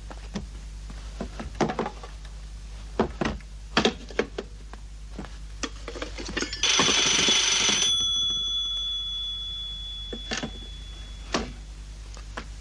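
Telephone bell ringing once for about a second, its tones fading away over the next couple of seconds. Before and after it come scattered clicks and knocks of the phone being handled and worked on.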